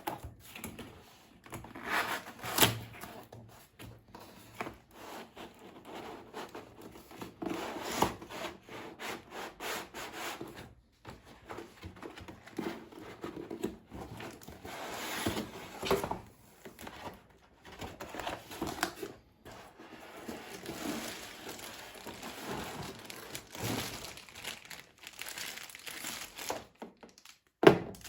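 Packaging being handled: wrapping crinkling and rustling in irregular bursts, with scattered knocks and scrapes.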